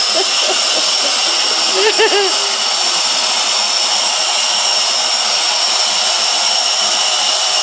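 Dyson vacuum cleaner running steadily with its hose nozzle held sealed against a person's lips, a constant rush of air with a steady high whine over it. About two seconds in, a short wavering sound breaks through.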